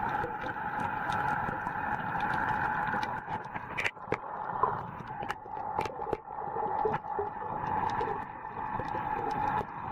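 Underwater sound picked up by a submerged camera: a steady, muffled hiss of water with scattered sharp clicks and crackles.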